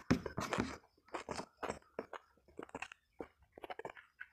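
A person chewing a mouthful of fried fish and rice close to the microphone, with a run of short, irregular chewing sounds about two to three a second.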